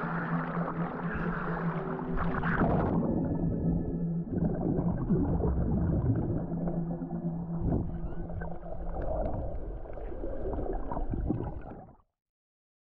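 Low, held droning tones that step from one pitch to another, over a rushing, splashing wash of surf on rocks. The highs go dull about three seconds in, and everything cuts off abruptly about a second before the end.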